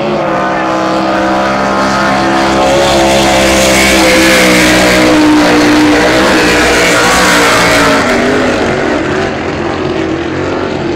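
Cracker Box drag boat engines running flat out as the boats pass down the course. The sound swells to its loudest midway and eases off near the end.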